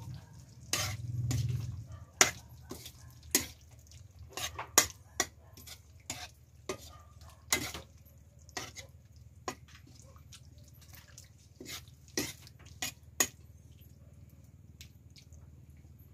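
Metal spatula stirring cuttlefish adobo in an aluminium wok, clinking and scraping irregularly against the pan. The strokes are thick for about the first thirteen seconds and then thin out.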